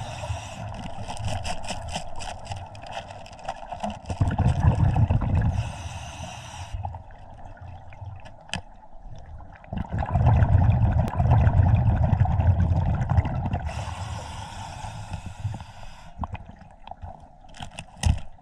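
Scuba diver's breathing heard underwater: long rumbling bursts of exhaled bubbles from the regulator about every six seconds, each followed by a hissing breath, with scattered sharp clicks in between.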